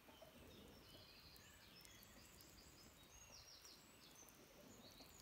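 Near silence, with faint songbirds chirping and giving quick high trills in the background.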